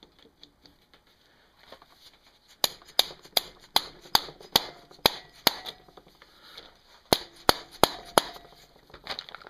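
Hammer striking a hand impact screwdriver to break loose a tight screw on a 1979 Honda ATC110's points cover, a stuck screw that the owner blames on RTV sealant on the threads. The sharp metallic blows begin about two and a half seconds in: eight in a steady run, a short pause, then four more.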